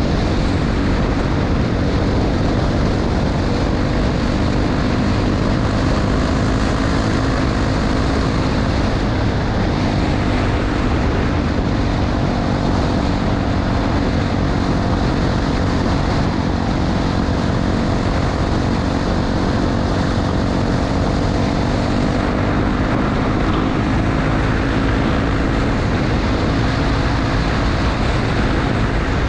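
Honda XR250 Tornado's single-cylinder four-stroke engine running at a steady cruise on a gravel road, with a constant rush of wind and road noise over it.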